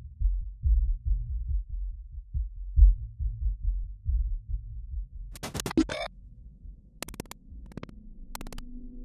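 Suspense soundtrack for a film scene: a low, pulsing throb for about five seconds, then a harsh crackling burst of static, a few sharp glitchy clicks, and a faint low drone near the end.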